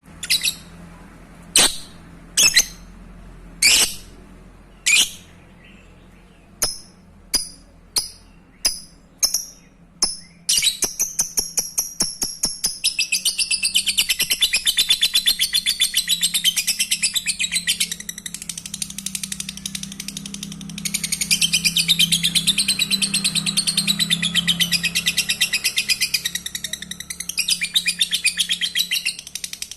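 Lovebird calling: sharp single chirps about a second apart, coming faster, then breaking about a third of the way in into a long, very rapid chattering trill that runs on with only a brief break. This long trill is the 'ngekek panjang' that lovebird keepers prize in contest birds.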